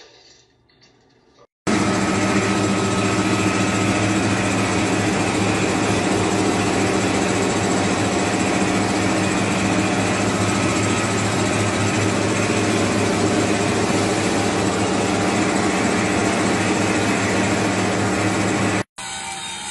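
CNC lathe turning a long metal bar: a loud, steady machine hum with a constant hiss of cutting. It starts abruptly about two seconds in and stops abruptly just before the end.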